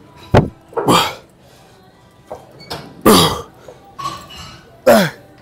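A man's short, forceful effort grunts on the exhale, three of them about two seconds apart, each dropping in pitch, as he pulls through reps of a cable chest fly. A short sharp sound comes just before the first.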